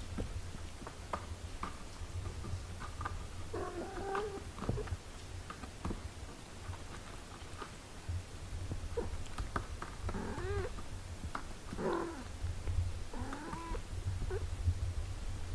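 Six-day-old kittens mewing in short, high, wavering cries while nursing: one bout about four seconds in, then several more from about ten seconds on. A low steady rumble and faint small clicks run underneath.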